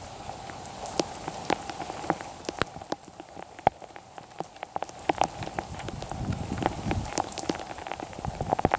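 Heavy rain falling steadily, an even hiss broken by irregular sharp taps of drops striking close by.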